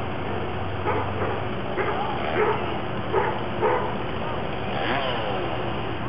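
Heavy work-site engine running steadily, with five short, loud calls over it, about half a second to a second apart, and a falling call near the end.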